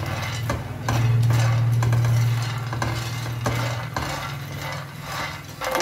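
A silicone spatula stirring phool makhana (lotus seeds) as they dry-roast in a nonstick frying pan. The light seeds click and rattle against the pan, with scraping from the spatula, over a steady low hum.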